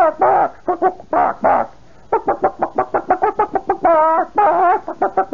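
A man imitating a hen with his voice: rapid clucking at a quickened tempo, broken by several long drawn-out squawks, one wavering about four seconds in. It stands for a hen excited at the sight of a rooster.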